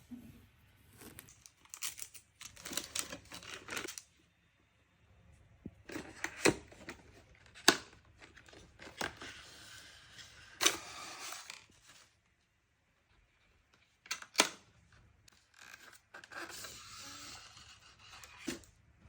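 Packaging being opened and handled: four bursts of tearing and rustling, with sharp clicks and knocks in between.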